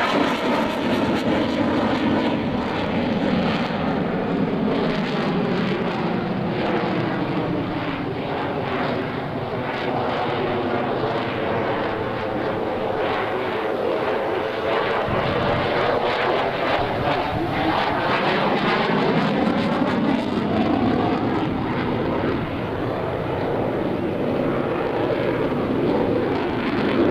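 F-16 Fighting Falcon fighter jet flying its display overhead: continuous loud jet engine noise. Its tone slowly sweeps down and back up as the jet passes.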